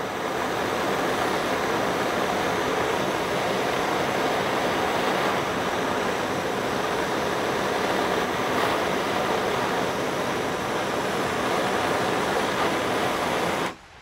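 Handheld gas torch burning with a steady hiss as its flame heats the blades of pruning shears to sterilise them; the flame cuts off suddenly near the end.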